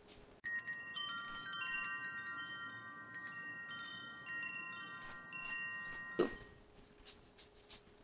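Wind chime ringing: many bright notes struck one after another and left to ring on together, cutting off about six seconds in.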